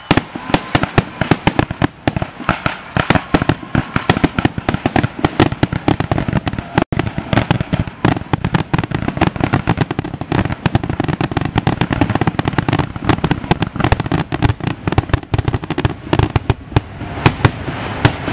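Rapid barrage of aerial firework shells bursting, many bangs a second overlapping with no let-up, then stopping shortly before the end.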